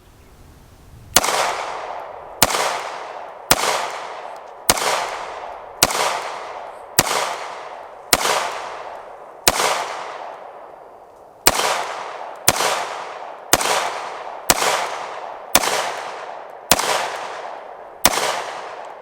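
Canik TP9 Elite SC 9mm pistol fired slowly and steadily, about sixteen shots at roughly one per second. Each shot has a long echo trailing off after it.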